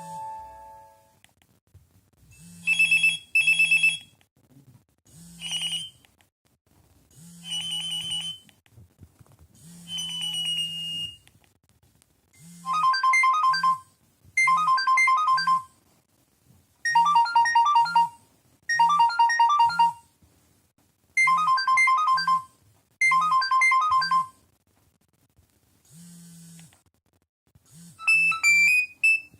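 Nokia 3108 mobile phone playing its built-in ringtones and alert tones through its small speaker: short electronic beep patterns about a second long, one after another with brief pauses between, each tone different. From the middle on, each tone sounds twice, and a longer tune starts near the end.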